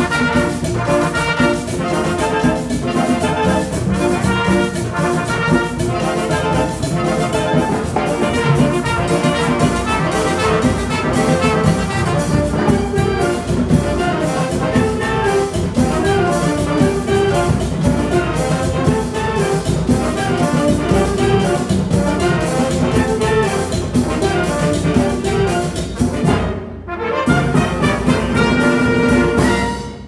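Wind band of brass, clarinets, saxophones and percussion playing a lively piece with a steady beat. Near the end the band breaks off for a moment, plays a short closing phrase and stops.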